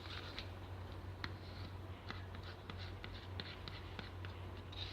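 Hands kneading and stretching sticky shampoo-and-salt slime, giving faint, irregular small clicks and crackles, over a steady low hum.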